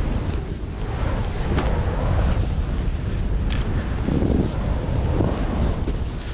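Wind buffeting the microphone of a skier's action camera while skiing fast through deep powder snow, a heavy steady rumble with surges of snow hissing under the skis as they turn, and a few faint clicks.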